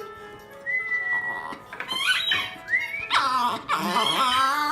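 A dog howling and whining along to music, its pitch wavering up and down, with a long, strong howl starting about three seconds in.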